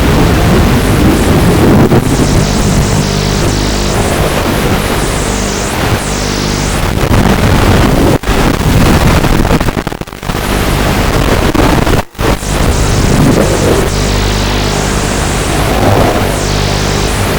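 Loud music with sustained chords that change in steps and sweeping effects, with a few brief dropouts about halfway through.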